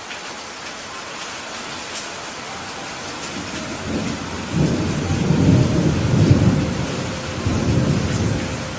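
Steady heavy rain with a low rumble of thunder that swells about four seconds in, peaks around six seconds and fades near the end.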